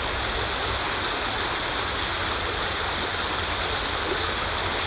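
Steady rushing outdoor noise, even throughout, with a faint short high chirp a little past halfway.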